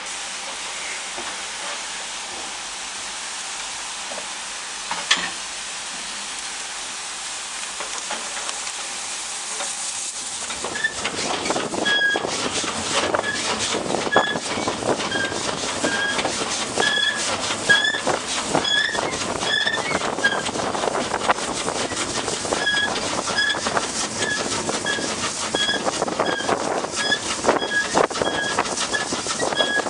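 Steam locomotive hissing steadily while standing, with one click about five seconds in. About ten seconds in, the train moves off and the brake van clatters and rattles along the track, with a short high squeak repeating about twice a second.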